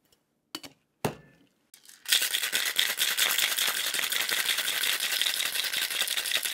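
Ice cubes rattling hard and fast inside a metal cocktail shaker as a drink is shaken, starting about two seconds in after a couple of sharp clinks.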